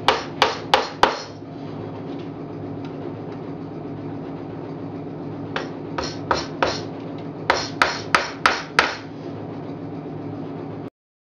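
Hammer driving 3/4-inch nails through a metal frame rest into the wooden end board of a beehive box. About four quick blows come at the start, then after a pause of about four seconds a longer run of about ten blows, roughly three a second. A steady low hum runs underneath, and the sound cuts off abruptly just before the end.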